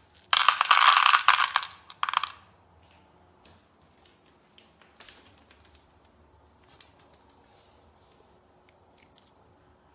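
Dry kibble poured by hand into a plastic pet bowl: a dense rattle of hard pellets for about two seconds, followed by scattered faint clicks.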